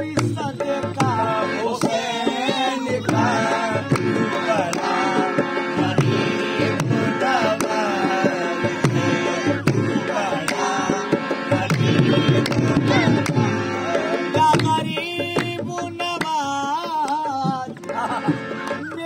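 Qawwali: tabla drumming in a steady rhythm under a wavering sung melody and held instrumental tones.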